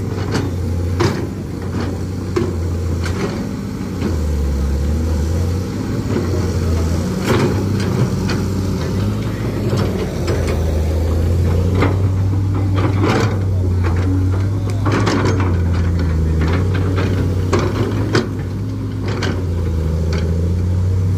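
Kobelco crawler excavator's diesel engine running steadily, its pitch dropping and rising every few seconds as the boom and bucket work, with several sharp metallic clanks.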